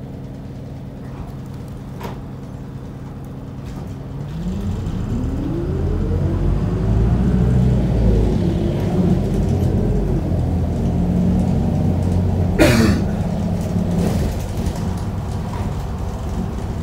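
Isuzu Erga city bus's diesel engine heard from inside the cabin: idling steadily, then about four seconds in revving up as the bus pulls away, its pitch rising and easing as it gathers speed. A short, sharp hiss about twelve seconds in.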